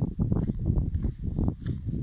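Irregular rumbling wind and handling noise on a handheld phone's microphone, with footsteps on a dirt path.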